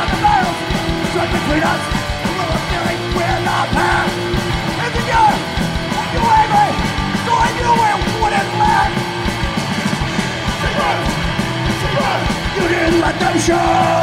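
Hardcore punk band playing live, loud and without a break: distorted electric guitars, bass and drums, with shouted voices over them.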